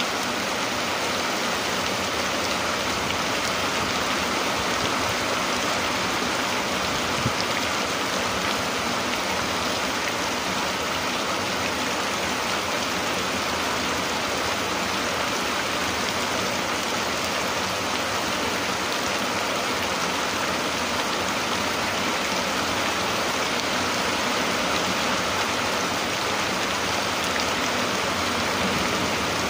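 Steady rain falling, an even hiss of drops that does not change, with a single brief tick about seven seconds in.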